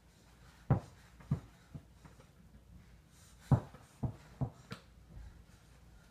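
Small toy basketball dropped and bouncing on the floor twice. Each time it makes a few knocks that come quicker and quieter as the bounce dies away.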